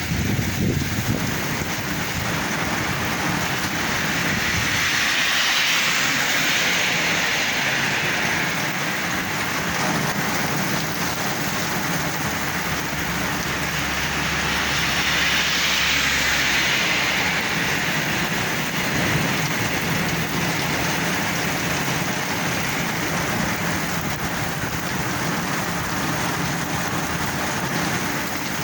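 Heavy rain falling steadily, with two louder swells of hiss about five and fifteen seconds in.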